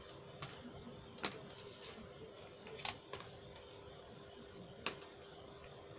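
Pastel stick stroking and tapping on paper: a few faint, irregular sharp clicks over a steady low hum.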